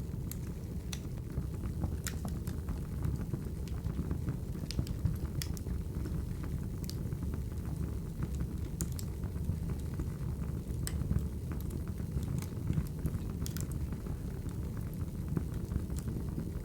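Crackling wood fire ambience: a steady low rumble with irregular sharp pops and crackles.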